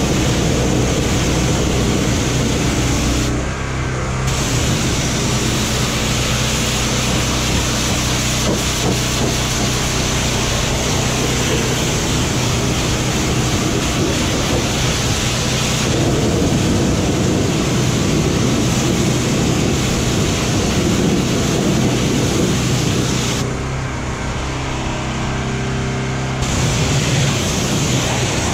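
Pressure washer jet hissing steadily as it blasts water against a truck's wheels and frame, over a steady low hum. The spray cuts out briefly twice, a few seconds in and near the end, while the hum keeps going.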